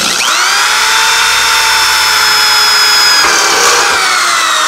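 Cordless power drill spinning up and drilling into an aluminum loading ramp, a steady high-pitched motor whine. Its pitch dips about three seconds in and then slowly sinks.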